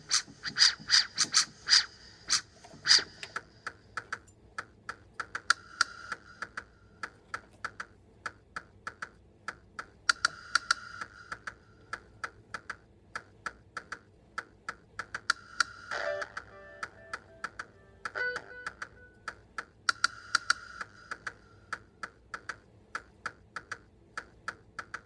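Keys of a synthesizer keyboard clacking as they are played, a fast, uneven run of plastic key clicks. The instrument's own sound goes to the player's headphones, so mostly the key action is heard, with faint pitched notes coming through about two-thirds of the way in.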